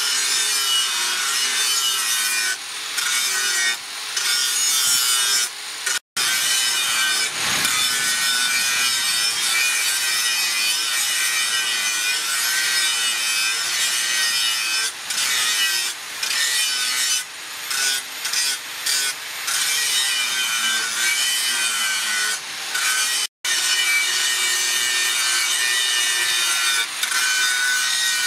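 Hand-held angle grinder with a flap disc grinding a forged steel blade: a steady, wavering whine with frequent brief dips in level. The sound cuts out for an instant twice, about 6 seconds in and near 23 seconds.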